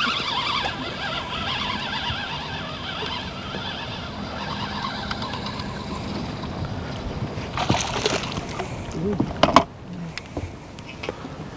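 Water lapping and sloshing against a fishing boat's hull, with wind. A spinning reel's drag squeals for the first couple of seconds as a hooked walleye pulls line. Sharp knocks sound on the boat about eight seconds in and, loudest, near the end.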